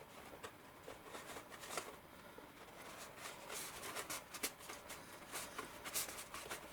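Cardstock being handled and pressed together as a seam tab is worked into place: faint, irregular crinkling, rustling and small clicks of paper.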